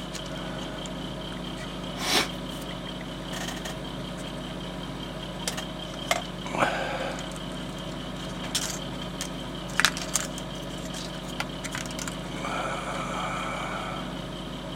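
Plastic card being handled on a cutting mat: scattered light clicks and taps, with a short scrape partway through and a longer scrape near the end, over a steady low hum.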